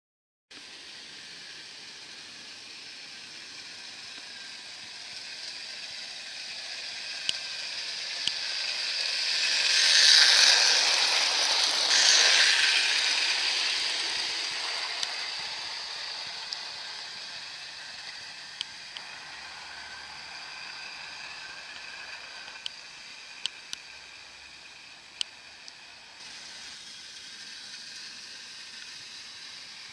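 3-rail electric 0 gauge model train, an ACE 4-4-4 tank locomotive hauling Pullman cars, running on garden track. The rattle of its wheels and motor grows as it approaches and is loudest as it passes close, about ten and twelve seconds in, then slowly fades as it moves away. Occasional sharp clicks sound through it.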